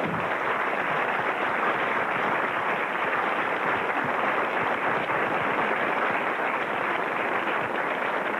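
Live theatre audience applauding: steady, dense clapping that greets an actor's entrance on stage.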